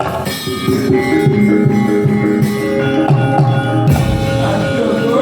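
Javanese gamelan playing the accompaniment to a wayang kulit performance: ringing bronze metallophone notes held over one another, with drum strokes, one low thump about four seconds in.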